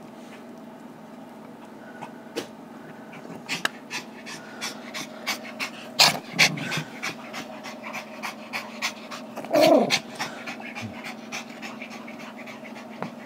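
Small terrier dogs panting fast and hard from play, about three to four breaths a second. Two louder outbursts come about six and ten seconds in.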